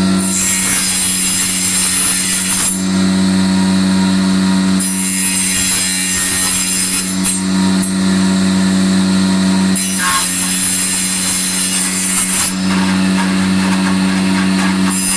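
Power tool cutting wood: a steady motor hum runs throughout. A hissing cutting noise joins it in stretches of two to three seconds, about every five seconds, as the wood is fed in and drawn back.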